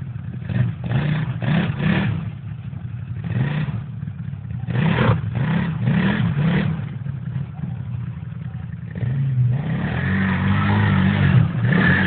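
Arctic Cat Wildcat X side-by-side's V-twin engine revving up and down in repeated throttle bursts under load as it climbs a steep dirt bank, with clatter from the machine and the dirt. About nine seconds in it settles into a steadier, harder run at higher revs.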